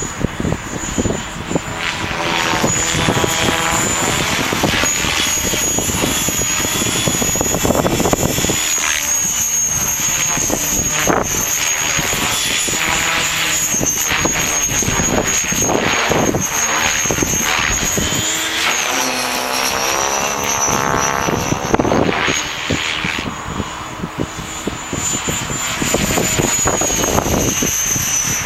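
Align T-Rex 550 electric RC helicopter in flight: a steady high motor whine with the swish of its Edge 523mm rotor blades. The pitch and tone sweep up and down as it moves and turns. Wind rumbles on the microphone underneath.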